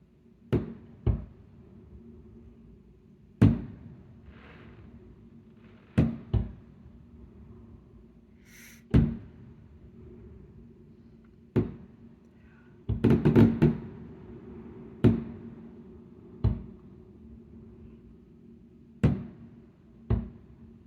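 Fireworks going off over water: about a dozen sharp, loud booms at uneven intervals, with a quick flurry of several bangs about two-thirds of the way through.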